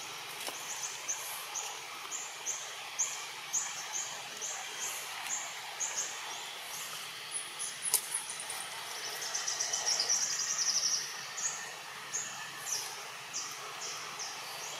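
Outdoor wildlife ambience: short high chirps repeating a few times a second throughout, a buzzing trill that swells about nine seconds in and stops near eleven seconds, and a single sharp click about eight seconds in.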